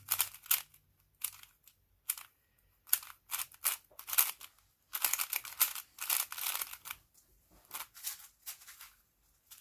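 Aosu WRM magnetic 4x4 speedcube being turned by hand: bursts of quick plastic clicking and scraping as the layers snap into place, in irregular groups with short pauses between them.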